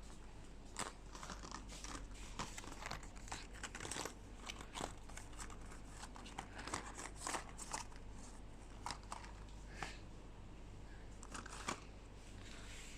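Product packaging being handled and opened: irregular crinkling and crackling of wrapping, with scattered sharp clicks, busiest for the first eight seconds or so and sparser after.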